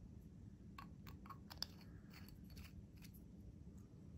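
Faint clicks and light scraping of a Pierre Cardin Golden Eye fountain pen being handled as its cap is pulled off. There are several small clicks through the first half or so, the sharpest a little past one and a half seconds.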